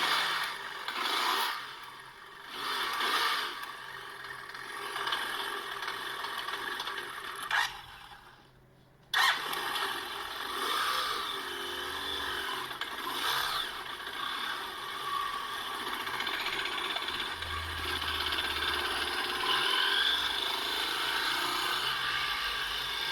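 BMW F700GS parallel-twin engine running roughly with misfires, surging twice early on, then dropping out for about a second before running again unevenly. The rough running and misfiring come from a failing ignition coil, which the owner found and replaced.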